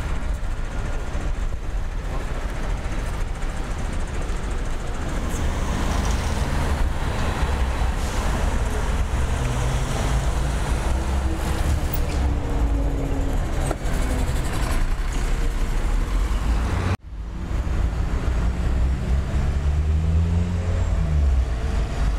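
City street traffic: motor vehicles driving past, with engine notes rising in pitch as vehicles pull away, once around the middle and again near the end. The sound cuts out for a moment about three-quarters of the way through, then the traffic resumes.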